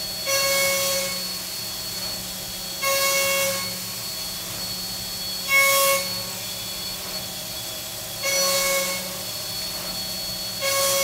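2-inch shell mill on a mill-turn machine's milling spindle, facing a large round bar with coolant at 11,000 RPM: a steady spindle whine with five louder swells of cutting noise, about one every two and a half seconds, as the cutter sweeps across the face.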